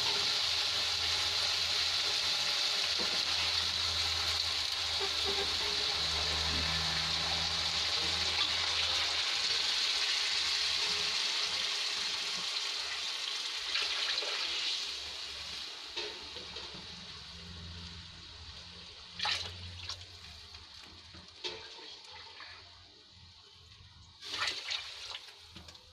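Water poured into a kadhai of hot oil and frying rice, rushing and sizzling loudly, then dying down gradually over the second half as the pan fills. A few short sharp knocks sound near the end.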